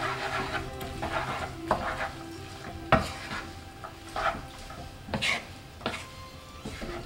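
Food sizzling in a frying pan while it is stirred, the utensil scraping and knocking against the pan at irregular moments, loudest about three seconds in. Soft background music with held notes underneath.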